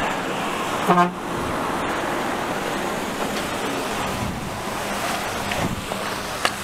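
A vehicle horn gives one short toot about a second in, over the steady noise of passing vehicles on a wet road. A sharp click comes near the end.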